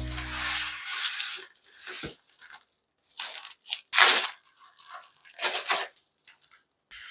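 Plastic-wrapped rolls of drawer liner mat handled and set down on a countertop, the packaging crinkling in a series of short rustles.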